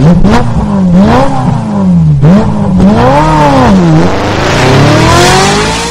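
An engine revving hard in repeated up-and-down blips, then one long climbing rev in the last couple of seconds.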